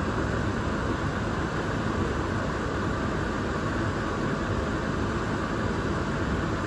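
Welding fume extraction unit's fan running, a steady, even rush of air, while it draws in test smoke.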